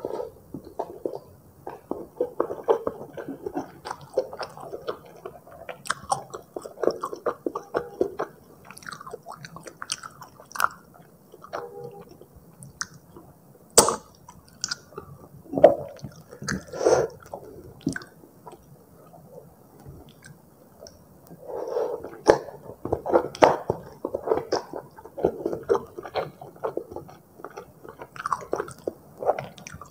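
Close-miked chewing of Indomie goreng rendang instant fried noodles: wet, irregular mouth sounds, busy for the first several seconds and again in the last third, with a sparser middle punctuated by a few sharp smacks.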